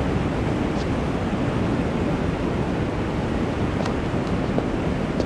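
Steady rushing of river water over falls below a footbridge, an even wash of noise that does not let up, with a few faint short high chirps.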